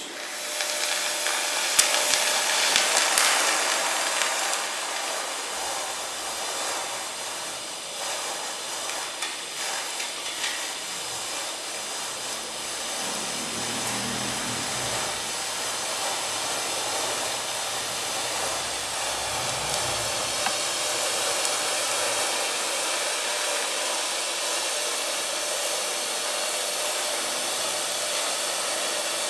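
TIG (tungsten inert gas) welding arc burning steadily while filler wire is fed by hand into the weld pool: an even hiss. It is louder for the first few seconds, with a sharp crack about two seconds in.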